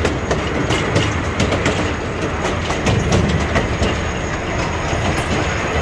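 Miniature passenger train running along its track, heard from aboard: a steady rumble of wheels on rail with frequent clicks and clacks over the rail joints.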